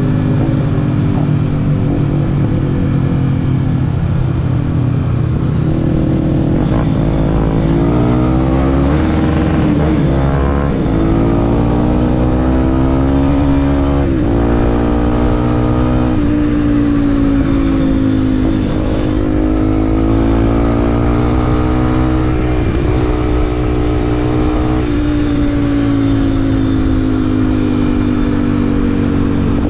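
Motorcycle engine accelerating through the gears, its pitch climbing and dropping back at each upshift several times, then holding steadier at cruising speed, with rushing wind noise underneath.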